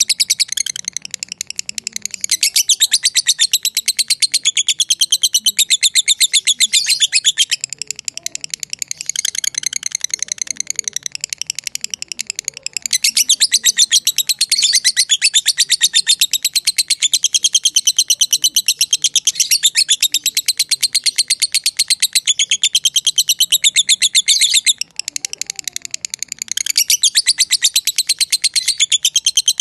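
Lovebird chattering in long, very rapid strings of shrill chirps, the drawn-out "ngekek panjang" chatter that fanciers prize. The chatter dips or breaks off briefly a few times, about 8 s, 12 s and 25 s in.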